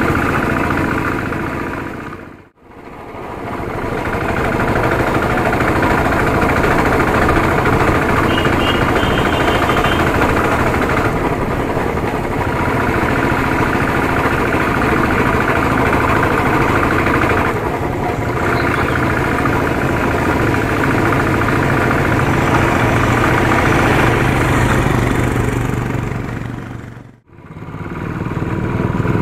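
Royal Enfield single-cylinder motorcycle engine running steadily under way. The sound fades out and back in twice, about two and a half seconds in and near the end.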